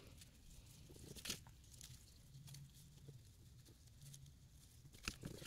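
Near silence with a few faint, soft rustles of ribbon and cardstock handled as a bow is tied, the clearest about a second in.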